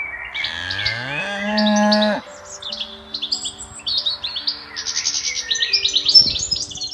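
A cow moos once, a long call rising in pitch that cuts off sharply about two seconds in. Songbirds chirp throughout and carry on after it.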